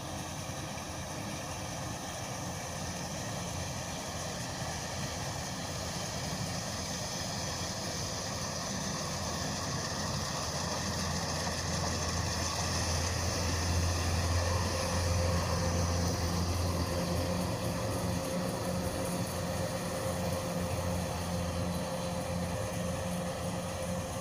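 Kubota DC105X combine harvester's diesel engine running steadily, said to still run smoothly after more than 1600 hours. It grows louder towards the middle, and a steady whine joins in about two-thirds of the way through.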